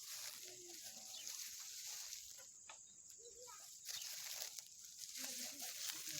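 Faint steady hiss of outdoor background noise, with a few brief, faint voice-like sounds in the distance.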